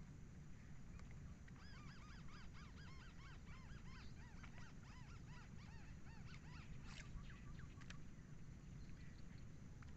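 A bird calling faintly in a quick series of short arched notes, about three a second, for several seconds from about a second and a half in, over a steady low rumble.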